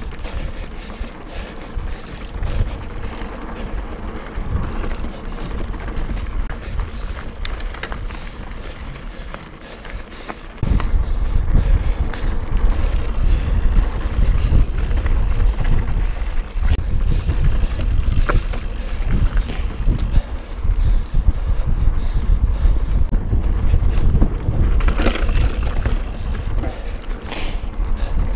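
Mountain bike ridden over rock and dirt trail: a continuous rush of wind on the microphone with tyre rumble and scattered knocks and clicks from the bike, jumping louder about ten seconds in.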